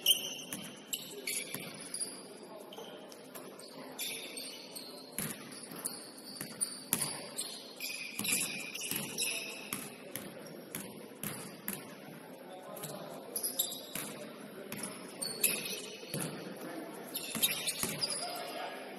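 Basketball play in a gymnasium: a ball bouncing on the floor again and again, with short high squeaks, echoing in the hall.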